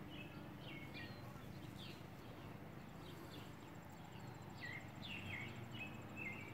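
Faint outdoor ambience: small birds chirping, short falling calls scattered throughout, with a thin, evenly pulsed high insect trill coming in about halfway, over low background noise.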